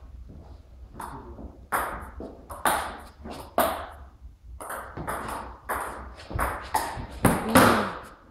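Table tennis rally: the ball clicking off the rubber bats and bouncing on the Tibhar table, a quick, uneven run of sharp knocks, each with a short echo, the loudest near the end.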